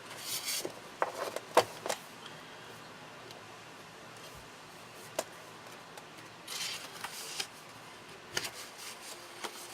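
Paper and craft supplies handled on a tabletop: a few short paper rustles and scattered sharp clicks and light taps, with quiet stretches in between.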